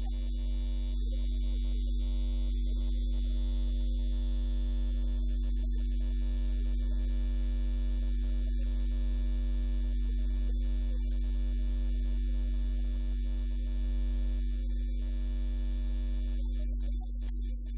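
Steady electrical mains hum: a constant low drone with a few fainter steady higher tones above it, unchanging throughout.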